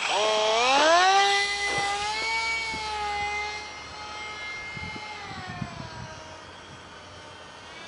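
An ultra-micro RC plane's small electric motor and propeller whining at full throttle. The pitch climbs sharply in the first second, then holds steady; about five seconds in it dips lower and the whine grows fainter as the plane flies away.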